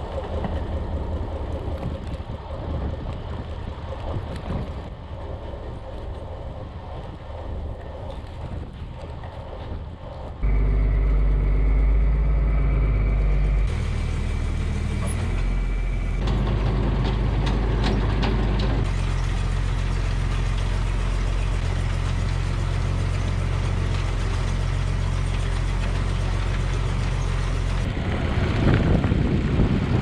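Diesel farm machinery running: a tractor with a Trioliet vertical feed mixer and a Kubota skid steer loader. Quieter for about the first ten seconds, then a loud steady engine drone whose pitch and level change abruptly several times.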